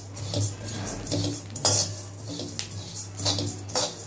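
Metal spatula stirring and scraping coriander seeds as they dry-roast in a kadai, the seeds rattling and swishing against the pan in repeated strokes. The seeds are being roasted until they turn a darker brown.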